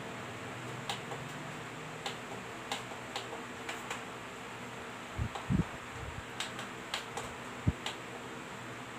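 Light clicks and a few dull knocks, irregularly spaced, from a small CCTV camera being handled and turned in the hand, over a steady low hum.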